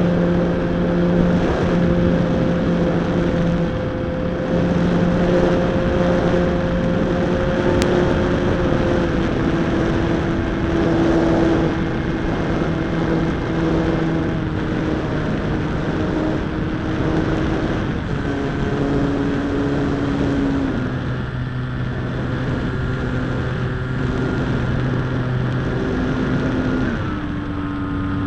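Slow Stick RC plane's electric motor and propeller running in flight, heard from a camera on the airframe, with wind rushing over the microphone. The drone's pitch steps down and up several times as the throttle is changed.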